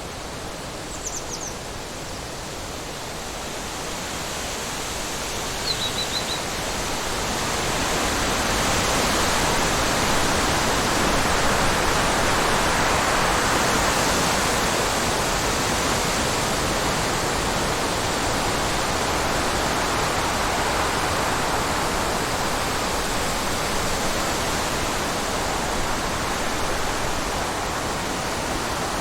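Wind blowing as a steady rushing breeze that builds over the first several seconds and then holds strong. Two brief high chirps sound in the first few seconds.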